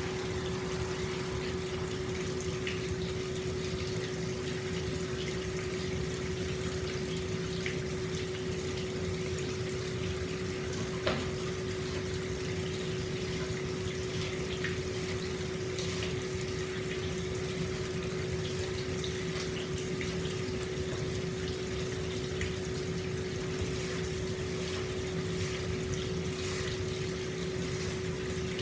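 Hot spring water flowing steadily into an open-air bath, with a constant low hum underneath and scattered small ticks and splashes, one sharper about eleven seconds in.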